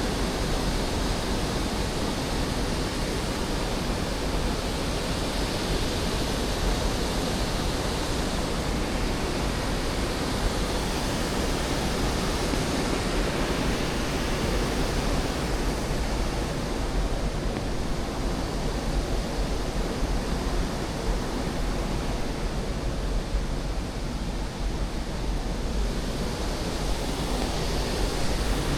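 Steady rush of falling water from waterfalls, an even noise with a deep low rumble. The hissing top of the sound thins out in the middle and comes back near the end.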